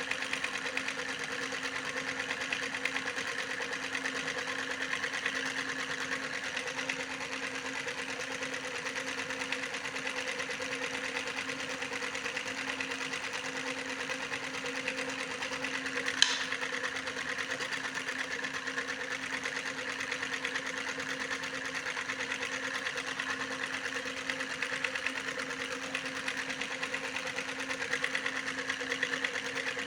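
Small electric motor running steadily with an even hum and a fast, fine rattle, with a single sharp click about halfway through.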